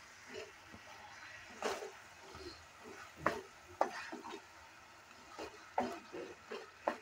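Spatula stirring chunks of cauliflower, potato and radish through masala in a kadai: about six short scraping strokes at irregular intervals, over a faint steady sizzle from the frying.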